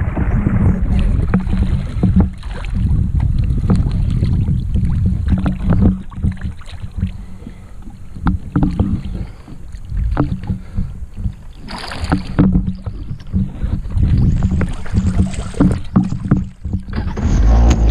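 Lake water splashing and sloshing against a stand-up jet ski's hull as a rider in the water grabs the ski and climbs back aboard, with irregular knocks and bumps. The level rises and falls unevenly throughout.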